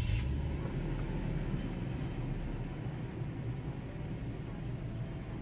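2007 Toyota FJ Cruiser's 4.0-litre V6 idling steadily just after being started, heard from inside the cab.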